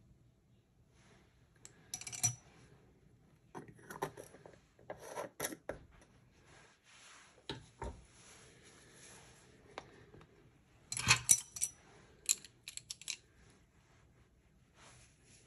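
Small hard objects, plastic pots and paintbrushes, being picked up, moved and set down on a tabletop: several bursts of clicks, taps and light clatter, the loudest about two seconds in and again around eleven seconds.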